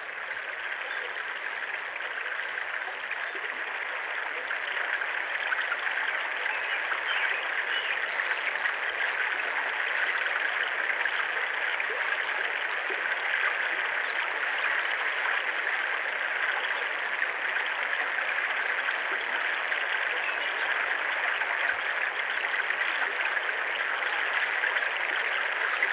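River water flowing steadily over rocks, a continuous rushing and rippling that grows a little louder over the first few seconds.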